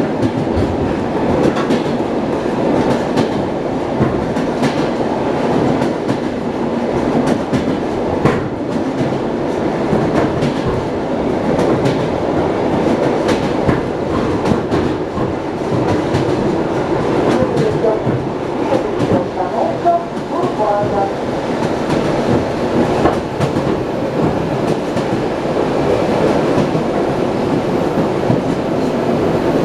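Wheels of an ED9M electric multiple unit clattering over rail joints as the train runs at speed, heard from inside the passenger car, with a steady rumble under frequent clicks.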